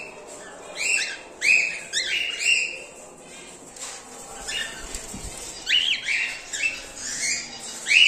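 Cockatiels giving short, shrill squawking calls, several in quick succession, in two bouts with a pause of about two seconds in the middle.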